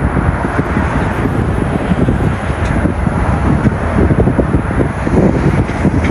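Jet airliner's engines at takeoff thrust as it lifts off and climbs away: a loud, steady, crackling roar.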